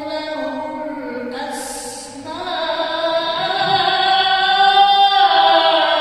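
Solo male imam chanting Quran recitation in melodic, ornamented tajwid style. A short hiss comes between phrases about one and a half seconds in, then a long held note grows louder from about two and a half seconds in and bends down in pitch about five seconds in.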